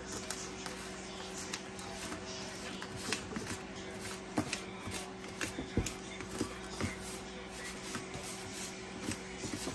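A metal fork scraping and mashing butter into a dry crumble topping mix in a baking pan, making irregular scrapes and clicks. A steady low hum runs underneath.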